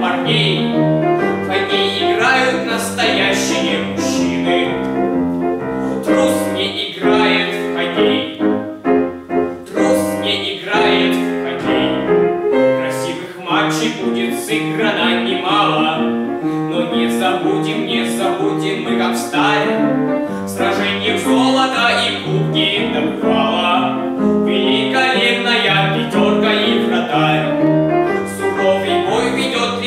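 Teenage boy's solo voice singing a song with grand piano accompaniment.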